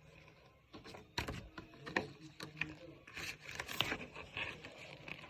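Handling noises from unboxing a gel blaster kit: scattered sharp clicks and short scrapes of plastic parts and packaging, a few louder knocks through the middle.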